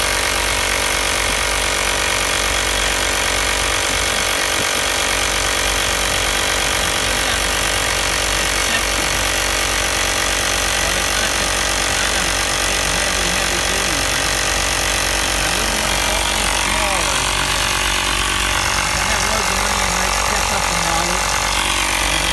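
Ring 620 12-volt portable air compressor running steadily with a fast mechanical rattle while pumping up a car tyre.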